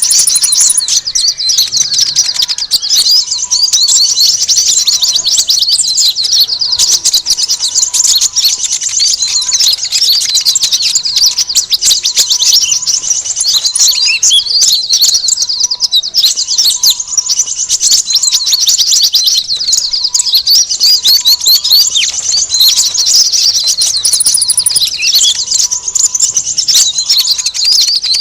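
Bird-lure recording of many small birds chattering at once: dense, unbroken high chirps and trills, used to draw in sunbirds. A fainter, lower short note repeats about once a second underneath.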